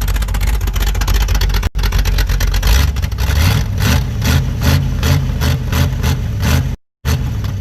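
Chevrolet 350 small-block V8 with open headers and a Comp Cams 12-600-4 camshaft, idling loud with a choppy lope of about three beats a second. The sound drops out briefly near the end.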